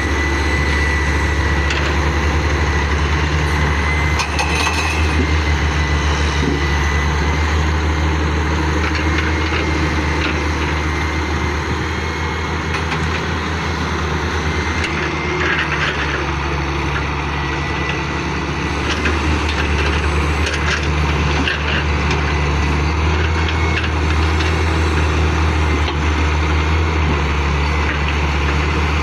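Excavator's diesel engine running steadily, a low hum with a thin high whine above it and a few scattered knocks.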